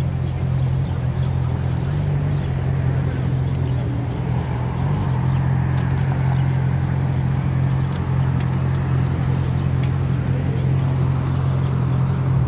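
Steady city street traffic noise, cars going by on a multi-lane road, under a loud, even low rumble.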